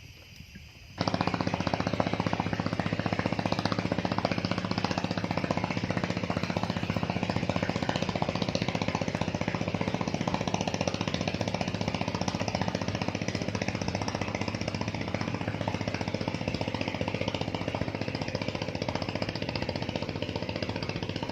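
A loud, fast mechanical rattle with a steady low hum underneath starts abruptly about a second in and runs on without a break, like a small engine-driven machine.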